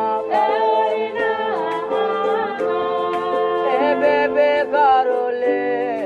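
Music: a singing voice gliding over held chords, with light percussion ticks.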